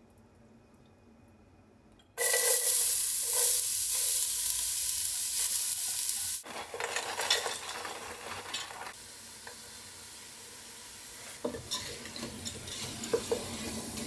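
Diced vegetables frying in oil in a stainless steel pot. A loud sizzle starts suddenly about two seconds in, eases after about four seconds to a quieter crackle, and a spatula scrapes and stirs the pot near the end.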